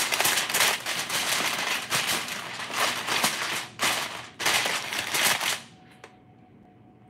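Aluminium foil crinkling and crackling as it is pressed and crimped down over a pan, stopping suddenly about six seconds in.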